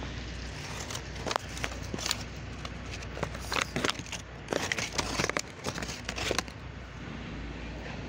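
A blood-stained paper napkin being handled, crinkling and rustling in a run of sharp crackles while a piece of raw meat is taken out for the falcon. A steady low hum sits underneath.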